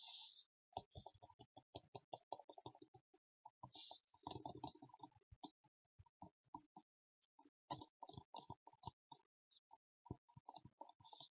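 Gloves being handled close to the microphone: quiet crackling, crinkling and clicking in quick irregular bursts, with a longer stretch of rubbing about four seconds in.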